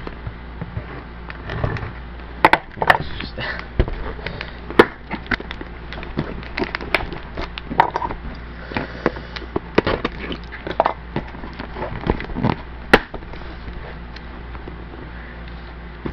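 A sealed cardboard shipping case being worked open by hand: irregular scraping and crackling of cardboard and packing tape, with scattered sharp snaps and clicks.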